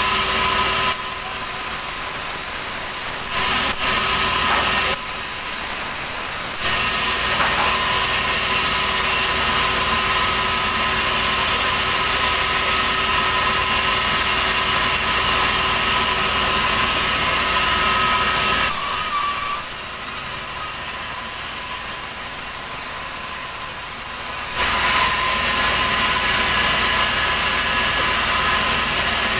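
Sawmill band saw running steadily as a large ulin (Borneo ironwood) log is fed through it, a loud mechanical drone with a steady high tone. The sound drops in level twice for a couple of seconds early on and for about six seconds past the middle, then comes back up.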